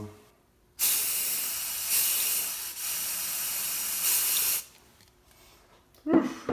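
Aerosol spray-paint can spraying, a strong steady hiss that starts about a second in, drops briefly partway through, and stops after about four seconds. A short, loud sound follows near the end.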